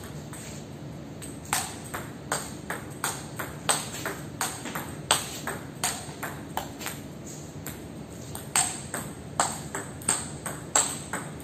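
Table tennis rally: a celluloid ball clicking off rubber-faced bats with Stiga Rosewood blades and bouncing on the table, a quick run of sharp clicks about two to three a second. The clicks start about a second and a half in, after a short lull between points.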